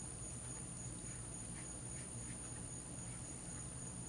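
Quiet background with a steady high-pitched whine, and a few faint light taps, typical of a paintbrush dabbing on paper.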